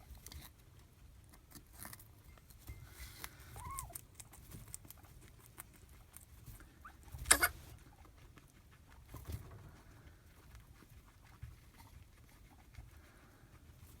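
Guinea pig shuffling in its bedding with small scratchy rustles, and one sharp cough about seven seconds in, two quick bursts close together, the loudest sound.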